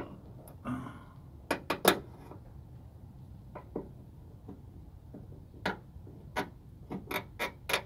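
Metal pry tool clicking and tapping against the retaining clip and end fitting of a hood gas lift strut as the clip is worked loose. The clicks are sharp and irregular: a quick cluster of three about a second and a half in, then scattered clicks and a faster run of them near the end.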